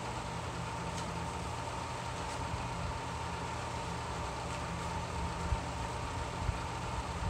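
Steady low mechanical hum, even in level, with a faint steady higher tone above it.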